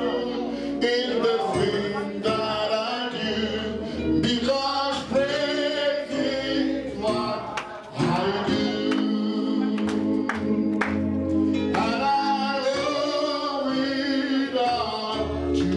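Congregation singing a gospel praise song over instrumental accompaniment with held chords, with sharp percussive hits scattered throughout.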